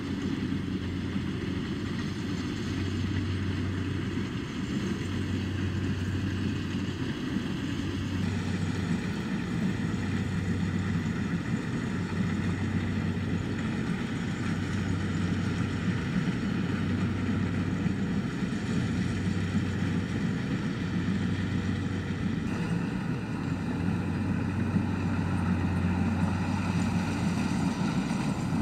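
Kubota DC-70 rice combine harvester's diesel engine and threshing machinery running steadily while harvesting, heard from across the field as a continuous drone, with a low hum that swells and fades every couple of seconds.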